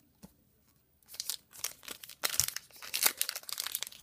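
Near silence with a single click, then from about a second in a trading-card pack wrapper crinkling and rustling in quick, uneven bursts as it is handled.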